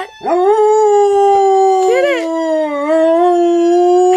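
A dog howls in one long, drawn-out howl at a fairly steady pitch, with a brief upward break about two seconds in and a slight sag in pitch after it. She is howling in response to a siren.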